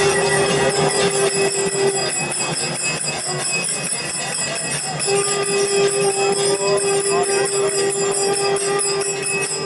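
Temple procession music: a single long held note sounds at the start, breaks off, and comes back about five seconds in, over constant fast jingling of bells and the murmur of a crowd.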